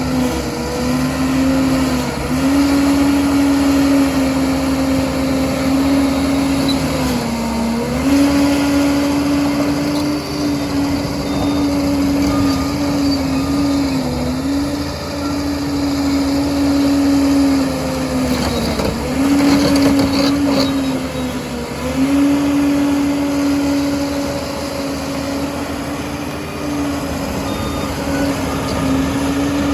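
Liebherr PR 746 crawler dozer's diesel engine running hard under load, its steady pitch sagging briefly about five times and recovering as the blade takes on and sheds material.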